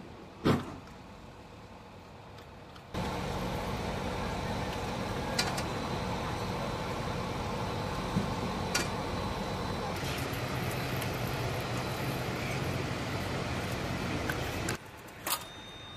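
Steady engine noise with a low hum, starting abruptly about three seconds in and stopping abruptly near the end, with a few sharp clicks over it. Before it there is a quieter background with one sharp bang about half a second in.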